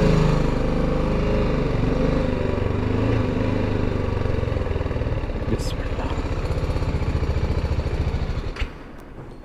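BMW G310GS's single-cylinder engine running at low revs as the motorcycle rolls slowly, its pitch easing down over the first two seconds and then settling into a steady pulse. The engine sound drops away sharply about eight and a half seconds in.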